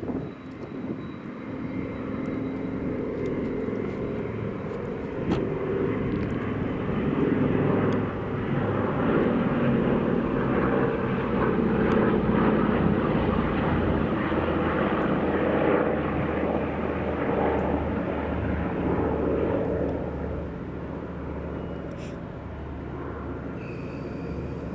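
Two Douglas C-47 Dakotas' twin radial piston engines droning as the pair fly past in formation. The drone swells to its loudest about halfway through and eases off after about 20 seconds as they head away.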